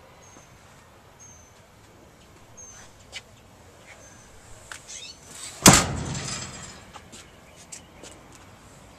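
A truck service-body compartment door slams shut with a loud metal bang about halfway through, ringing and rattling briefly as it latches, after a few small clicks of latch or door hardware.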